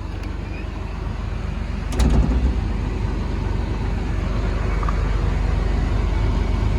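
Caterpillar 336E L excavator's diesel engine running, heard from inside the operator's cab as a steady low rumble, with a single thump about two seconds in.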